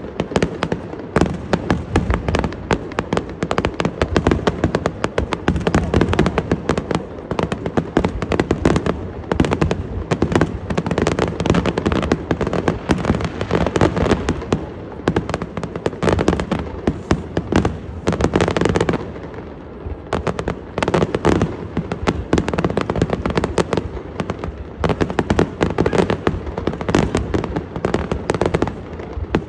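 Aerial fireworks display: a rapid, continuous barrage of shell bursts and crackling, with a brief lull about two-thirds of the way through before the bursts resume.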